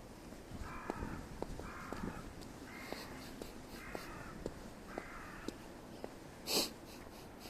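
A crow cawing five times, about once a second, over faint scattered clicks. Near the end comes a short, louder rushing noise, the loudest sound here.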